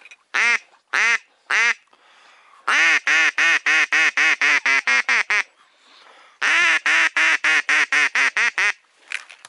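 A duck quacking loudly: three single quacks, then two long runs of rapid quacks, about five a second.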